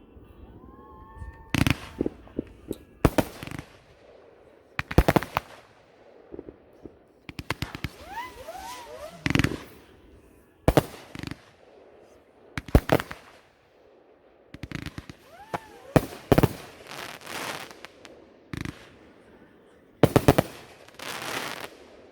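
Fireworks going off: a series of about ten sharp bangs spread irregularly, several trailing into crackling, with a few brief rising-and-falling whistle-like tones in between.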